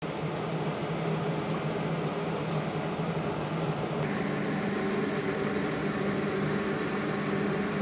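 Steady mechanical hum with a low drone, like a kitchen fan or motor running; its tone shifts slightly about four seconds in.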